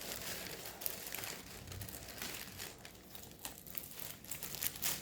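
Packaging crinkling and rustling in irregular bursts as a diamond painting kit is unwrapped and handled.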